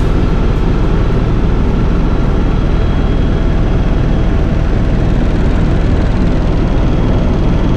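Helicopter in steady cruise heard from inside the cabin: a loud, constant drone of the turbine engine and rotor, with a low hum underneath and faint steady whines above.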